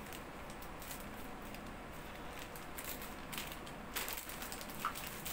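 Scissors snipping through a plastic mailer pouch, with light crinkling of the plastic and a few sharper snips about four seconds in.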